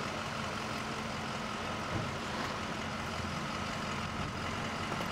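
A parked vehicle's engine idling: a steady low hum that does not change.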